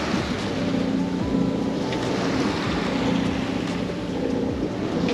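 Sea water rushing and splashing along the hull of a sailboat under way, over the steady drone of the boat's engine.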